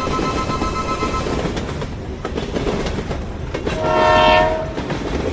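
Train running with a steady rumble and a few rail clicks. A held two-note horn tone cuts off about a second in, and a short horn blast, the loudest sound, comes about four seconds in.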